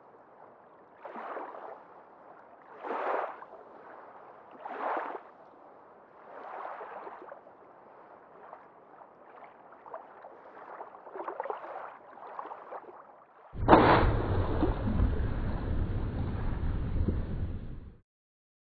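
Sea water lapping and sloshing against a boat's hull in soft swells about every two seconds. About 13.5 seconds in, a much louder steady rushing noise with a low rumble takes over and cuts off abruptly near the end.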